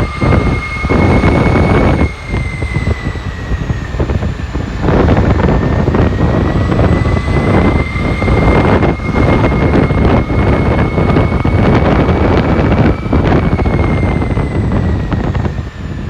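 300 KV brushless electric motor running under power, giving a steady high whine that drifts a little down and back up in pitch, over a loud rough rushing noise.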